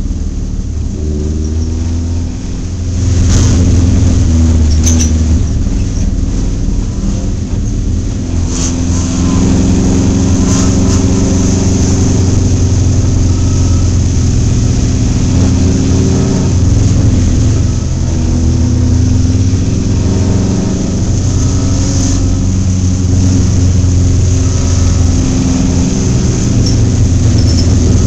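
Dirt-track stock car's engine heard from inside the car, running under light throttle, then picking up and getting louder about three seconds in and holding a steady pull. A few sharp knocks and rattles from the car come through over the engine.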